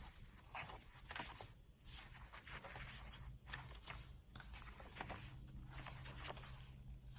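Pages of a handmade paper journal being turned and handled: faint, irregular paper rustling and crinkling.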